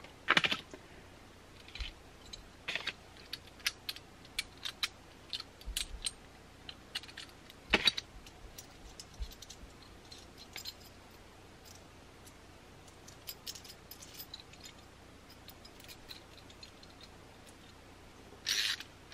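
Sparse small clicks, snips and metallic rattles of hand work on 4-gauge battery cable: a small cutting tool working at the cable's insulation and the metal ring-terminal connectors being handled. A few clicks stand out, one about half a second in and one near the middle, with a short rustling cluster near the end.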